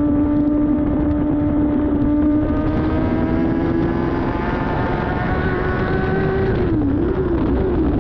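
A 2007 Yamaha R6 race bike's inline-four engine running on track, heard from an onboard camera. Its pitch climbs slowly for a few seconds, then dips and wobbles briefly near the end as the throttle changes, before holding steady, over a steady rushing rumble.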